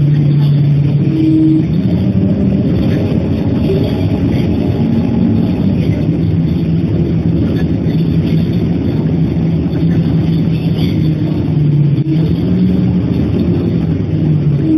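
Road vehicle engine running in traffic, a steady drone with road noise, its pitch shifting up and down a little as the speed changes.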